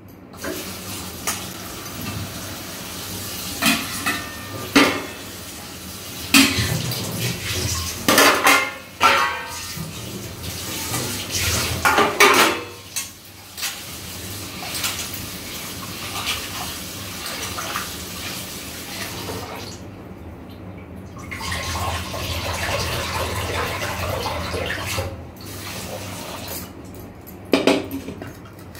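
Kitchen utensils and dishes clinking and clattering in repeated separate knocks, with water running at times.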